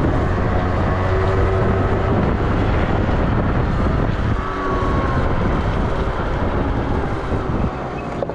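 Yamaha Vino scooter's engine running while riding, with wind noise on the microphone. The engine and loudness ease off near the end as the scooter slows.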